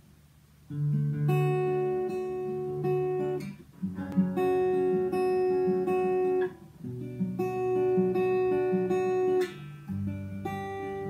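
Acoustic guitar playing the instrumental intro of a song, starting about a second in. Plucked chords ring and change roughly every three seconds.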